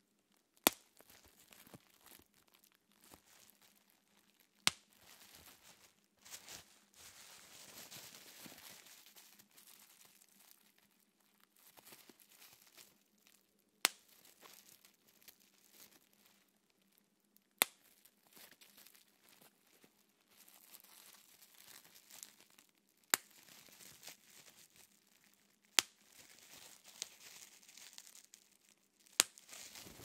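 Plastic bubble wrap crinkling and rustling between the fingers, with seven sharp pops spaced several seconds apart as single bubbles are squeezed until they burst.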